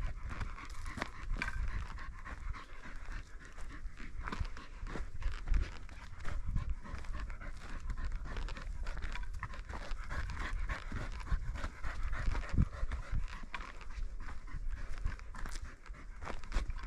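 Steady panting mixed with footsteps crunching and thudding on loose, freshly dug soil.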